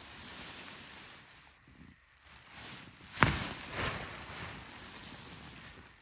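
Tent fabric rustling as it is shaken out and unfolded, with a sharp snap a little after three seconds in as the fabric is flung up and fills with air, and a softer flap just after.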